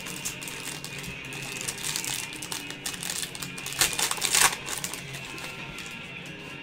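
Trading card packaging being handled and torn open by hand: crinkling and rustling with scattered clicks. The loudest burst of crinkling comes about four seconds in.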